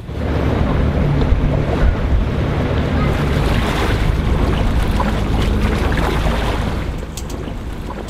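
Water rushing past the hull of a sailboat under way, with wind buffeting the microphone and a low steady hum underneath. The sound eases slightly about seven seconds in.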